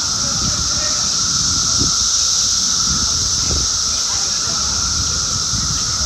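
Chorus of Brood X periodical cicadas (17-year cicadas): the males' mating calls blend into a loud, steady, high-pitched screeching drone with a lower hum beneath it, unbroken throughout.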